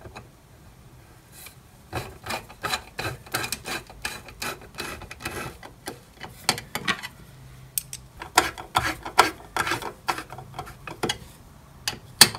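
Hex key turning socket-head cap screws into an aluminium bracket: runs of small metallic clicks and scrapes as the key is turned and reset in the screw head, in several bursts with short pauses between them, and one sharp click near the end.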